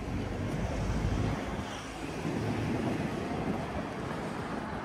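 Street traffic noise with wind rumbling on the microphone, the rumble heaviest in the first second or so.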